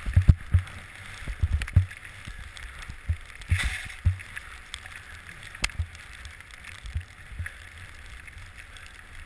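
Skis hissing through deep powder snow on a downhill run, with a louder swoosh of snow about three and a half seconds in. Irregular low thumps and knocks run under it.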